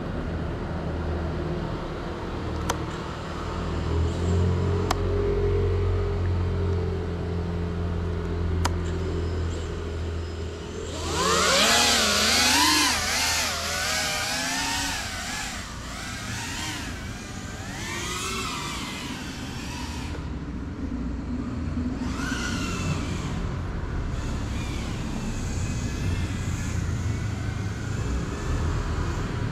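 GEPRC CineLog35 quadcopter, a ducted cinewhoop FPV drone, flying: its motors and propellers give a buzzing whine whose pitch swoops up and down with the throttle. It is loudest from about a third of the way in, when the drone is closest, and fainter before and after.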